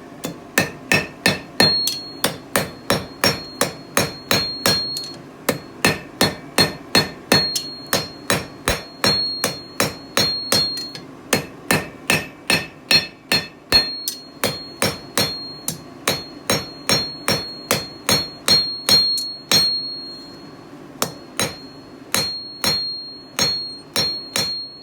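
A 3.5-pound hand hammer striking hot steel on the heel of an anvil, drawing out and refining the taper of a fire steel. Steady blows about three a second, in runs of several seconds with brief pauses, each strike followed by a high ring from the anvil.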